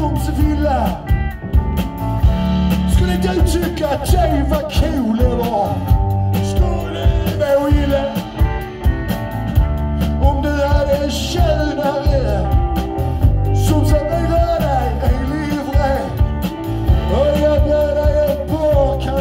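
Live rock and roll band playing, amplified: a man singing into a microphone over electric guitars and drums with a steady beat.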